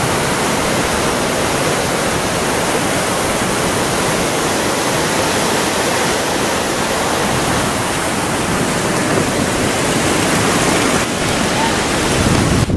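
Shallow river water rushing over a stony bed, a steady, loud rush.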